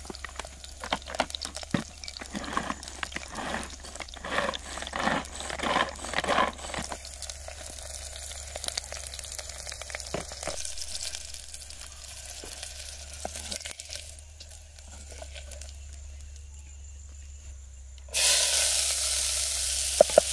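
A hand-pull food chopper yanked about twice a second for several seconds, its blades whirring through onions and green chillies. About eighteen seconds in, the chopped onions and chillies hit hot oil in a clay pot and start sizzling loudly, stirred with a wooden spatula.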